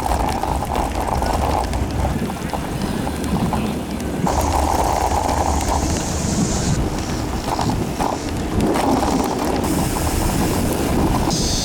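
Wind buffeting the camera microphone in gusts that start and stop, with faint voices behind.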